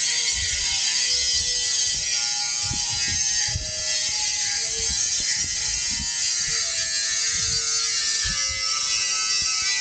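Small power cutting tool buzzing steadily as it cuts through the switch panel.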